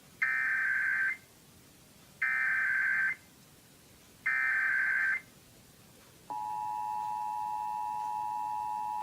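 Emergency Alert System digital data tones: three warbling bursts of just under a second each, about a second apart, which is the length of the SAME header that opens an alert. About six seconds in, the two-tone EAS attention signal (853 and 960 Hz) starts and holds steady.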